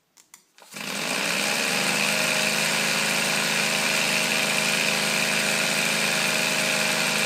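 3D-printed three-cylinder radial compressed-air engine with a propeller starting as its air valve is opened. It speeds up over about a second, then runs at a steady speed on all three cylinders with a hiss of exhausting air.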